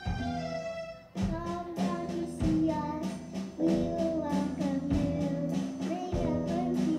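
Live children's rock band playing: a held chord rings for about a second, then the drums, guitars and keyboard come in together on a steady beat, and a girl sings over the band.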